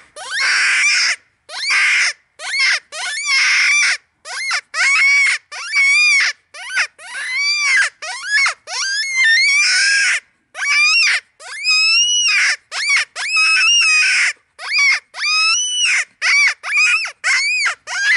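Hand-blown predator mouth call giving loud, wavering, high-pitched distress squeals in a rapid string of short blasts, each bending up and down in pitch, with brief breaths between them.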